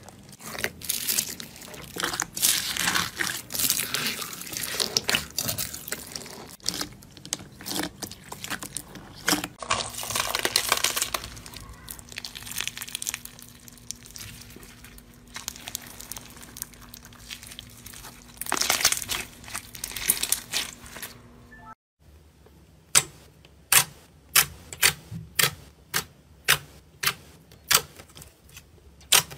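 Hands working slime: crackling, crunching and squelching as fingers push through slime topped with tiny foam beads, then loose pearl beads rattling and rustling. Near the end, a run of sharp clicking pops, about two a second, as a blue glitter slime full of air pockets is pressed.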